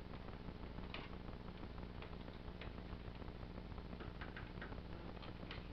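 Faint, scattered clicks and ticks of hard plastic from a large Transformers Trypticon toy being handled and its parts pressed and shifted.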